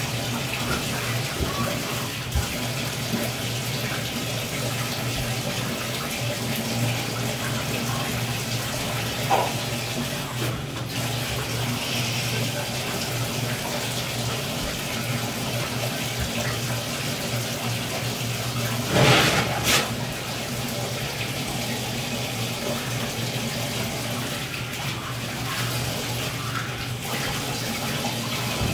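Bathtub tap running steadily while a dog is washed in the tub, with one brief louder rush of noise about two-thirds of the way through.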